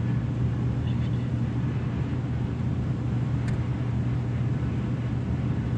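Steady low hum of a running machine over a soft even noise, with one faint click about three and a half seconds in.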